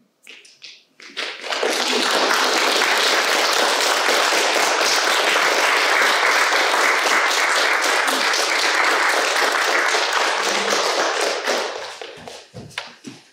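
Small audience applauding: a few scattered claps, then steady applause for about ten seconds that thins back out into scattered claps near the end.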